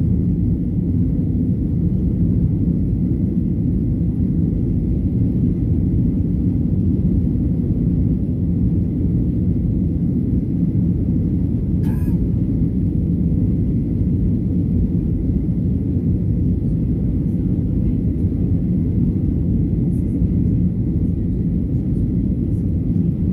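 Steady low rumble of a Boeing 737-900ER's CFM56-7B turbofans and rushing airflow heard inside the cabin during the climb-out after takeoff.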